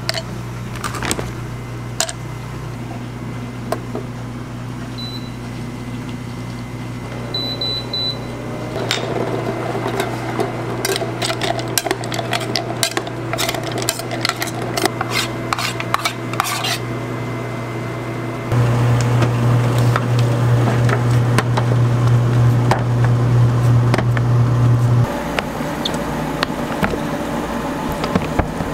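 Chocolate discs clattering into a metal pitcher and clinking under a stirring spoon, over a steady kitchen machine hum that grows louder for several seconds past the middle. Two short electronic beeps sound a few seconds in.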